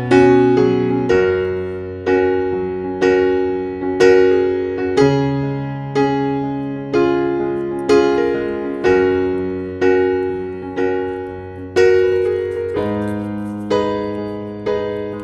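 Background music: a slow, gentle piano piece, one note or chord struck about once a second, each ringing and fading, over held bass notes.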